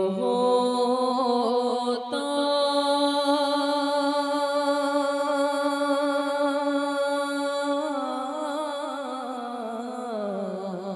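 A man singing the wordless opening of a naat: long held notes with shaking ornaments, turning into quicker wavering runs about eight seconds in.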